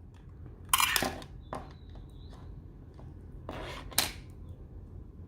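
A smartphone being handled by hand: several sharp clicks and short scrapes of hard plastic and metal, the loudest about a second in and near four seconds in, as its card slot is worked.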